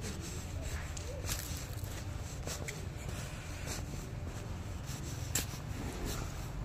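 Footsteps on brick paving, a few soft steps about a second apart, over a steady low rumble.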